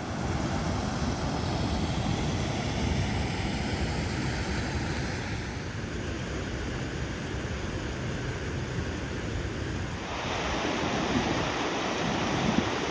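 Low Force waterfall on the River Tees, its water rushing steadily and very noisily. About ten seconds in, the rush turns brighter and hissier.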